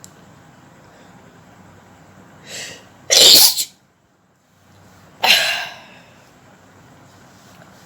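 A woman sneezing twice. A quick intake of breath about two and a half seconds in leads into a loud sneeze, and a second, slightly quieter sneeze follows about two seconds later.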